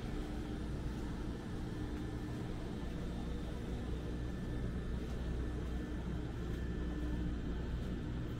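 Steady low mechanical hum with a constant droning tone over a low rumble.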